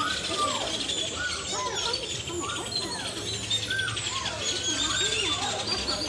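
A flock of birds chirping and calling many at once, a dense chatter of short rising and falling notes. A steady low hum joins underneath about halfway through.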